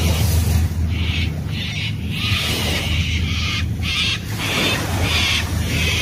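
Birds calling in short, harsh bursts that repeat about every half second, over a steady low rumble.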